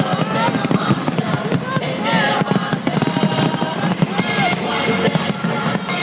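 Music mixed with dense, rapid crackling bangs of fireworks.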